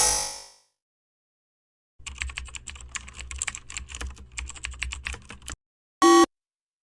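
Keyboard typing sound effect: a run of rapid, uneven computer key clicks lasting about three and a half seconds, followed by a short, pitched beep.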